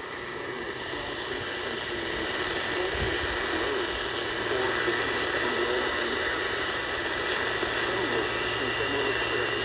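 Weak, static-laden radio reception of an Emergency Alert System flash flood warning broadcast: steady hiss and crackle with a faint, garbled voice barely audible under the noise.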